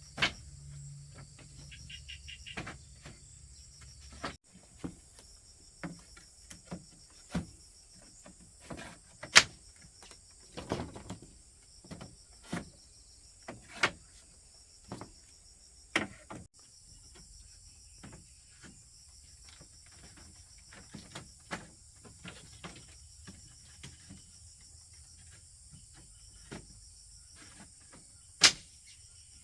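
Steady high chirring of crickets, with irregular sharp knocks and taps every second or two, loudest about nine seconds in and near the end.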